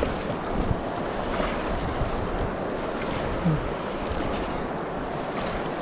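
Rain-swollen river water rushing and splashing in a steady wash, with wind buffeting the microphone.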